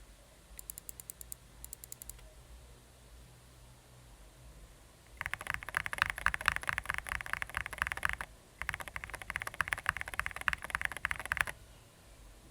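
Gateron yellow linear mechanical keyboard switches clacking under rapid key presses, some lubed with bike chain lube, in a sound test. Faint light clicks near the start, then two loud runs of fast clicking of about three seconds each with a short pause between.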